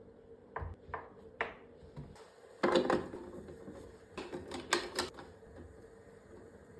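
Irregular sharp clicks and light knocks of kitchen things being handled, with a louder clatter about two and a half seconds in and another run of clicks a little later.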